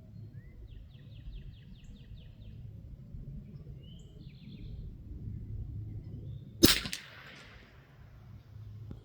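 A single .22LR rifle shot, a sharp crack about two-thirds of the way in with a short echo trailing off. Birds chirp and trill faintly before it over a low steady background rumble.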